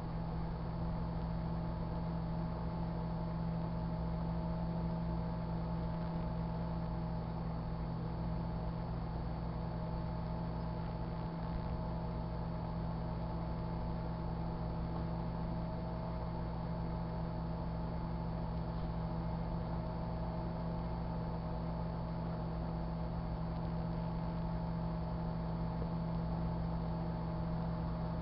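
Sharp Carousel microwave oven running a cooking cycle: a steady, even electrical hum.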